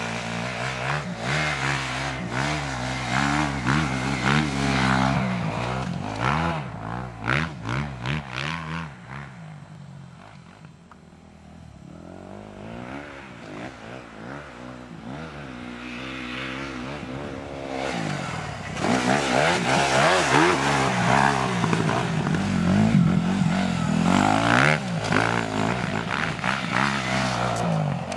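Suzuki RM-Z 250 four-stroke single-cylinder motocross bike revving up and down as it is ridden hard, its pitch rising and falling with each burst of throttle. It grows fainter about ten seconds in as it moves away, then comes back louder in the second half.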